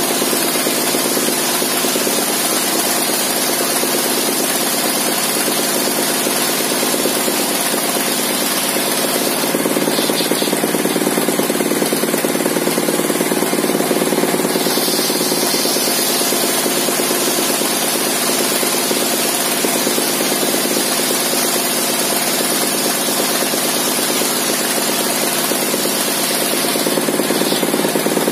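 Engine-driven bench circular saw, its blade modified for ripping fibrous timber, running steadily while planks are fed lengthwise through it.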